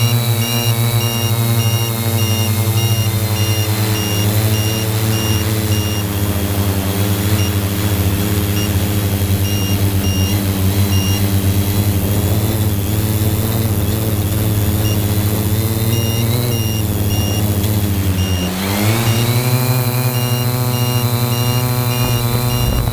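3DR Y6 multicopter's motors and 15-inch propellers droning steadily in flight. About three-quarters of the way through, the pitch dips briefly and climbs back as the motors slow and speed up. A faint high beeping comes and goes throughout.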